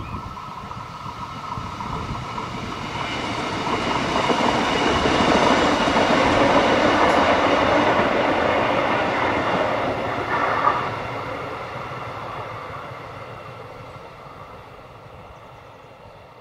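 Diesel railcar passing unseen: its rumble and wheel noise swell to a peak midway, with a steady whine on top, then fade away.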